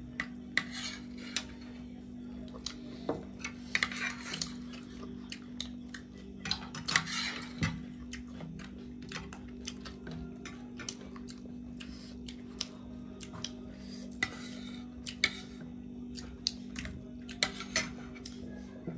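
Metal spoons and forks clinking and scraping against plates as leftover food is scooped up, in irregular sharp clicks, over a steady low hum.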